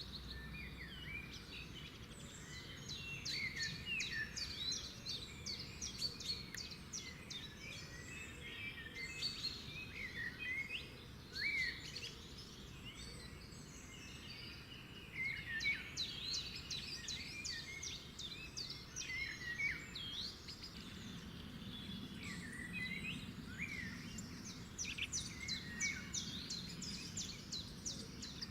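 Several birds singing at once, a steady stream of quick chirps, clicks and short rising and falling whistles, over a faint background hiss.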